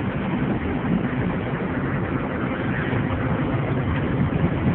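Steady road and engine noise of a car driving along at an even pace.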